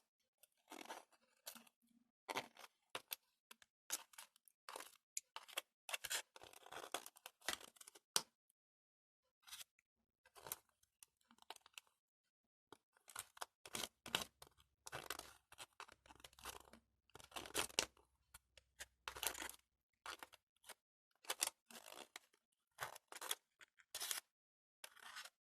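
Irregular short rustling and scraping handling noises, some brief and some lasting about a second, broken by short silences: hands working with a brush, jelly and plastic candy trays while painting the jelly with silver paint.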